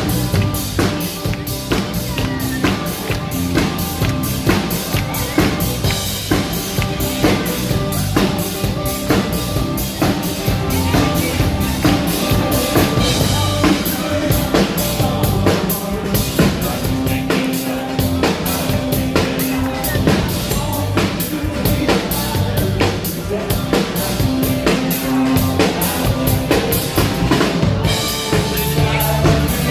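Live band playing a rock-pop mashup, with a drum kit keeping a steady driving beat of kick, snare and rimshots under bass and sustained chords.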